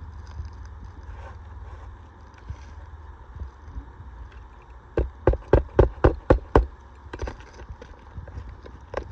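Hammer driving a roofing nail into asphalt shingles: a quick run of about seven sharp blows, roughly four a second, about five seconds in, then a single blow near the end.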